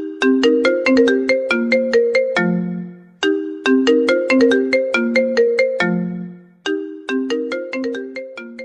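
Mobile phone ringtone: a short, quick melody of separate notes that ends on a low note and repeats about every three and a half seconds, heard three times, the last run dying away near the end.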